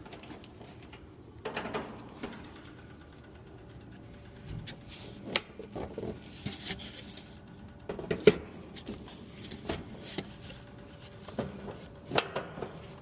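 Sheet-metal cover of an outdoor AC unit being lined up and its 5/16 hex-head screws tightened: scattered metallic clicks and knocks, with a few sharper ones.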